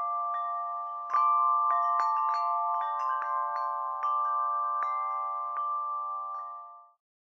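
Tinkling chime sound effect: bell-like metal notes struck irregularly, about two or three a second, over a held ringing chord. It fades out near the end.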